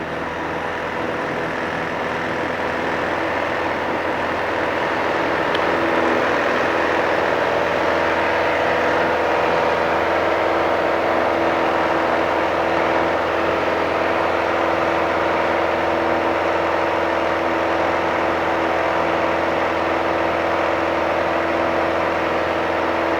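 Piper PA-28-180's four-cylinder Lycoming O-360 engine and propeller at full takeoff power during the climb-out, a steady drone that grows a little louder over the first several seconds and then holds.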